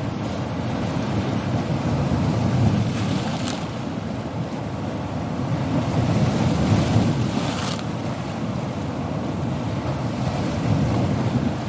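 Sea waves breaking on a coast: a continuous wash of surf that swells and eases every few seconds, loudest about seven seconds in.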